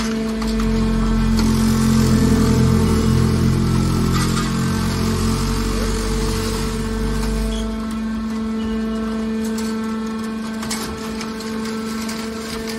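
Hydraulic scrap steel baler running: a steady hum from its motor and pump, with a louder stretch of low rumbling noise for the first several seconds. A few sharp knocks come about eleven seconds in.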